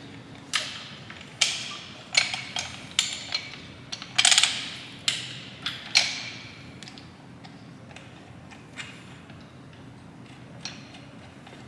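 Sharp metal-on-metal clanks and clinks from hand tools and parts being handled: a quick irregular run of about a dozen strikes with short ringing tails in the first six seconds, the loudest cluster around four seconds in, then two lone clinks later on.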